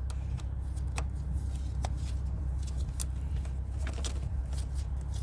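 Scattered light clicks and taps of hand tools on metal, about one a second, over a steady low hum, as a car battery is refitted and its terminals tightened.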